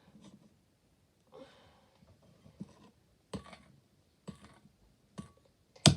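Thick slime being stirred in a bowl: scattered sticky clicks and taps about once a second, with a sharper, louder knock just before the end.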